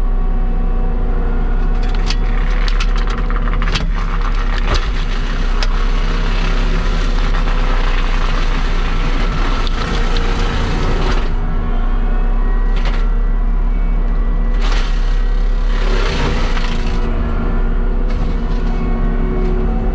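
A heavy land-clearing machine's diesel engine runs steadily under load. Sharp cracks and snaps of wood come mostly in the first few seconds, and short bursts of hiss follow later on.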